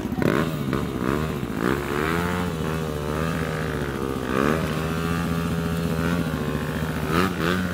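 Dirt bike engines revving up and down over and over as a rider and helpers force a bike through deep mud, with a steady engine hum underneath.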